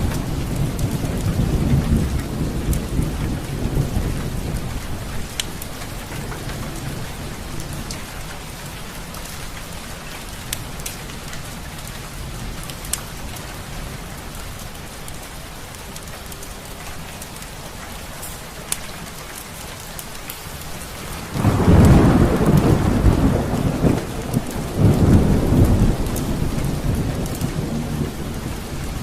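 Steady rain with rolling thunder: a rumble dies away over the first few seconds, and a fresh, louder thunderclap rolls in about three quarters of the way through, followed by a second a few seconds later. Sparse sharp crackles from a fireplace sound over the rain.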